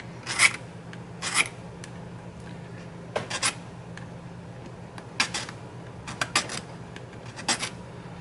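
Nicholson 00 safe-edge file rasping across a tobacco pipe's stem in short, uneven strokes about once a second, filing down the tooth-compressed bite area by the button.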